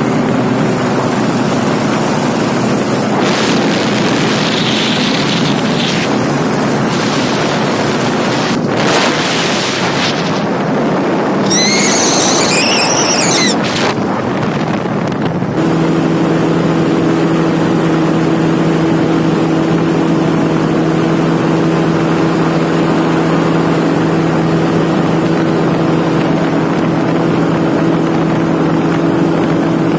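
Paramotor engine and propeller running steadily in flight, with heavy wind noise on the microphone. The engine note changes and becomes a steadier, stronger drone about halfway through.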